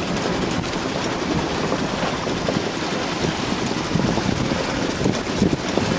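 Steady wind buffeting the microphone, mixed with water rushing along the hull of a small sailboat under sail in a fresh breeze.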